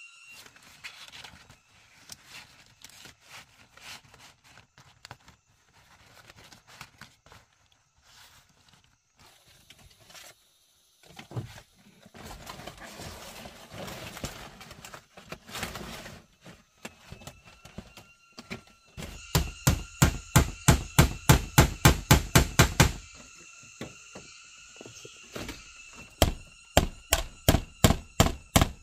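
Rapid, evenly spaced knocks of a hand tool striking, about five a second, in a loud run about two-thirds of the way through and another near the end, with scattered lighter knocks and handling sounds before.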